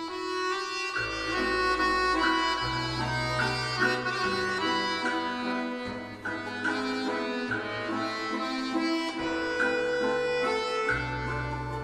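Instrumental background music with sustained chords over long held bass notes that change every second or two.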